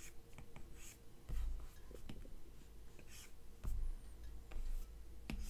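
Apple Pencil tip tapping and sliding on the iPad's glass screen: light clicks and short scratchy strokes as lines are drawn and erased, with a few dull low thumps.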